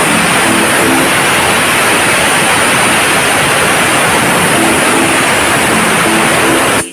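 Aluminium stovetop pressure cooker whistling: a loud, steady hiss of steam forced out past the weight valve, the sign that the cooker is at full pressure. It is one of the whistles counted to time the cooking. The hiss cuts off suddenly at the very end.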